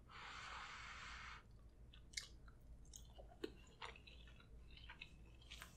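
Quiet, wet chewing with scattered small mouth clicks, from a person eating a bite of deshelled seafood topped with melted mozzarella in Alfredo sauce. It opens with a soft hiss lasting about a second and a half.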